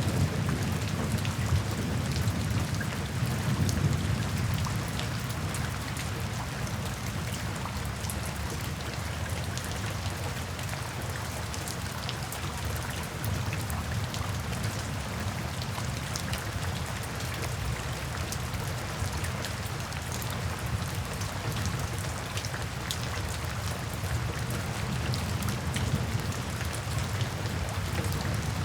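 Steady rain falling into puddles and standing water, with many small drop taps. Under it runs a low rumble of distant thunder, strongest in the first few seconds and then easing.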